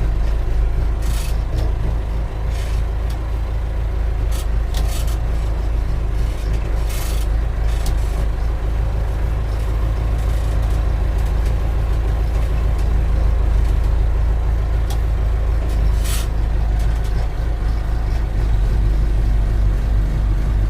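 Backhoe's diesel engine running steadily at close range, a continuous low rumble, with a few short hissing clicks scattered through it.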